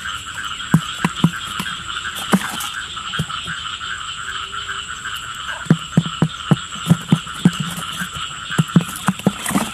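Animal calls: short, low croaking calls, a few about a second in and a quick run of them through the second half, over a steady high-pitched chorus.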